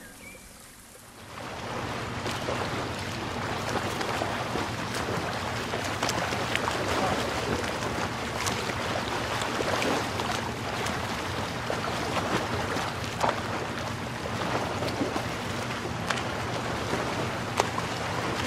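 Seaside ambience: waves washing on the shore and wind buffeting the microphone, a steady rushing that starts about a second in, with scattered light clicks.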